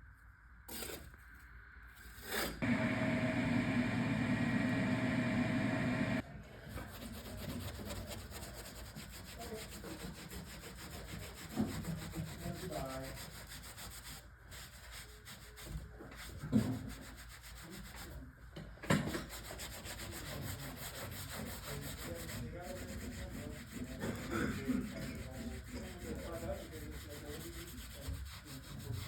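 A small motor runs steadily for about four seconds near the start. Then comes continual scraping and rubbing of a hand tool over the textured drywall, with a few sharp knocks.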